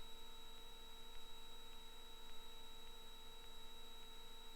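Faint, steady electronic hum with a thin high-pitched whine and a few lower steady tones; no engine or cabin noise is heard.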